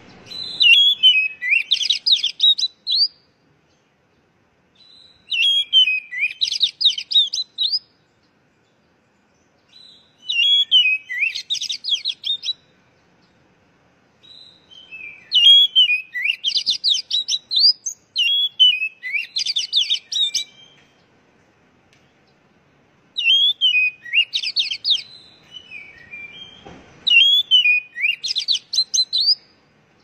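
Oriental magpie-robin (kacer) singing in full song: about seven phrases, each a couple of seconds long, that open with a falling whistle and run on in quick rising and falling notes, with short pauses between phrases.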